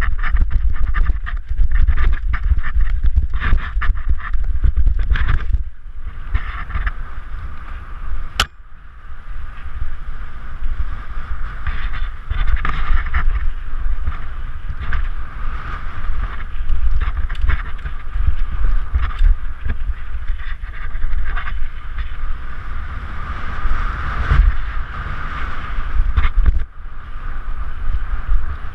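Mountain bike riding fast downhill, heard through a GoPro Hero 3's microphone: wind buffeting the camera, and the bike and tyres rattling and knocking over rocks for the first several seconds, then rolling more smoothly on dirt trail. A single sharp click about eight seconds in.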